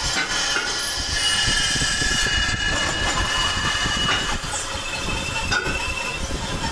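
Boring machine running, its rotating boring bar cutting through a cast-iron pump housing: a steady, loud machine noise with thin, high whining tones over it.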